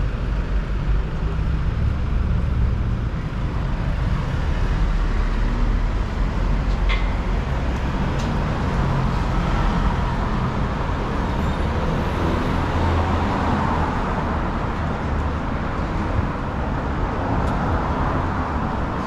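City street traffic: a steady low rumble of engines and passing vehicles, with a couple of brief sharp ticks about seven and eight seconds in.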